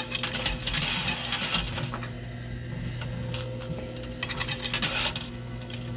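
Quarters clinking in a coin pusher machine: a flurry of metallic clicks in the first second and a half, and another about four seconds in, over a steady low hum.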